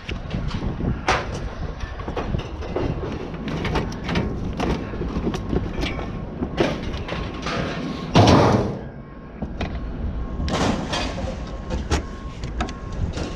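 Irregular knocks and clatter of things being handled, with one loud heavy clunk about eight seconds in.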